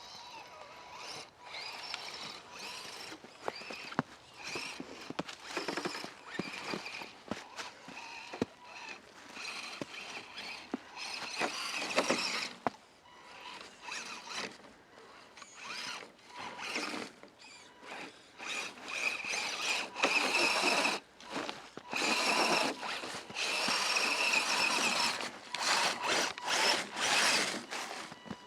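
Electric motor and gear train of an Axial SCX10 Deadbolt RC crawler whining in short stop-start throttle bursts, a high whine that comes and goes, with longer and louder bursts in the second half.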